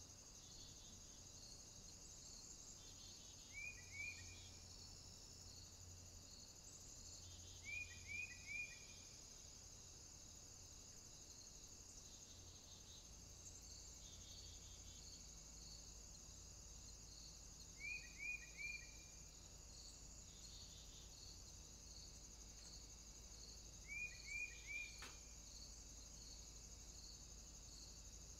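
Quiet backyard ambience: a steady high insect drone, with four brief runs of two or three quick, falling chirps from a small bird, spaced several seconds apart.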